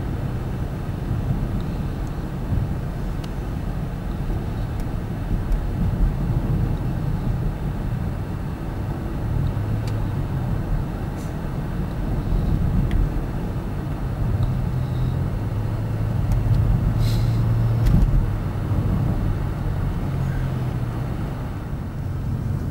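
Car engine and road noise as a steady low rumble, the engine's hum shifting in pitch a few times.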